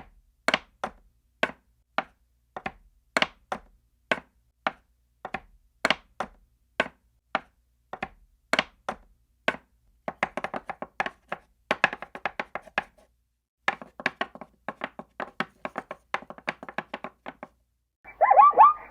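Sharp, hard taps, about two a second at first, then quicker uneven clusters with a short pause midway.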